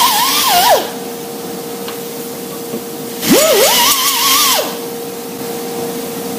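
Pneumatic grinder with a small abrasive disc grinding on the steel axle tube and flange, in two bursts. The first ends under a second in; the second starts about three seconds in and lasts over a second. Each time the whine climbs as the tool spins up and wavers as the disc bites the metal, with a hiss of exhaust air, over a steady background hum.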